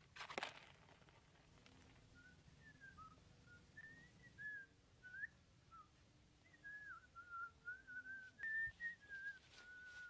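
A short clatter about a quarter second in as the plastic-basket trap tips on its cardboard board, then from about two seconds on a person whistling a wavering tune in short phrases that rise and fall.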